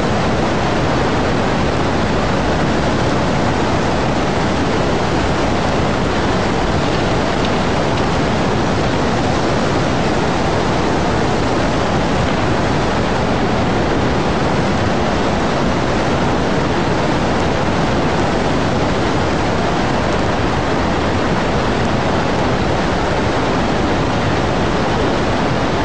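Tsunami floodwater surging through a harbour: a loud, steady, unbroken rushing noise.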